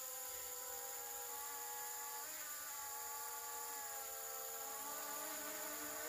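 Quadcopter drone flying, its propellers giving a steady buzzing whine. The pitch dips slightly about two seconds in and rises again near the end.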